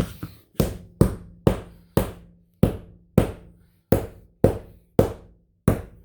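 Ryobi Airstrike cordless 18-gauge narrow crown stapler firing staples in quick succession, about ten sharp shots roughly half a second apart, with a faint steady hum between shots.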